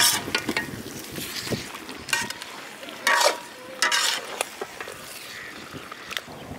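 Metal ladle stirring and scraping thick chicken curry in a blackened iron kadai: four sharp scrapes of metal on the pan, some with a short metallic ring, over a faint sizzle of the simmering gravy.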